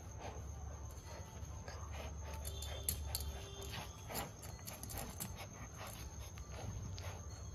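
Two German Shepherd puppies play-fighting, mouthing and scuffling at each other, with scattered short clicks and soft dog noises.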